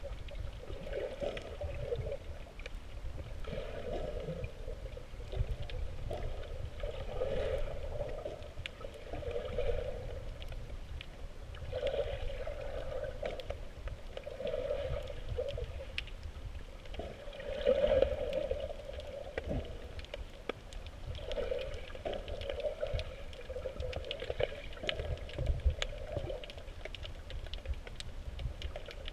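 Underwater sound heard through a GoPro's waterproof housing: a steady low rumble of moving water against the case, with a muffled swish every second or two.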